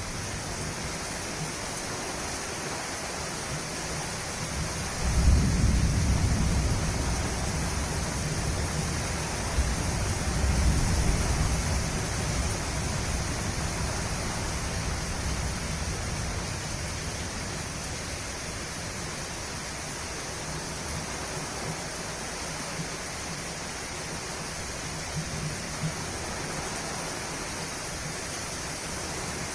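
Steady rain falling, with distant thunder rumbling low: one long roll swelling about five seconds in and fading slowly, another around ten seconds, and a faint one near the end.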